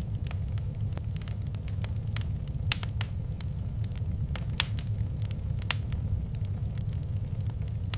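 Wood fire crackling, with irregular sharp pops over a steady low rumble; three louder pops stand out in the middle.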